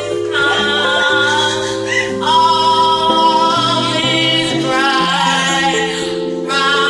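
A woman singing karaoke over a backing track, holding long notes with short breaths between phrases.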